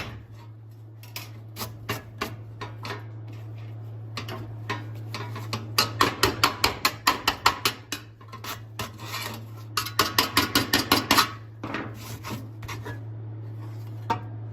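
Quick back-and-forth scraping strokes of a hand tool on metal, about four or five a second. They come in two loud runs with lighter strokes between, over a steady low hum.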